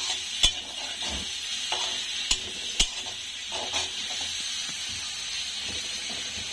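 Sliced onions sizzling in hot oil in a steel karahi, being fried to a golden brown. A metal spatula stirs them, with a few sharp clicks where it knocks and scrapes against the pan.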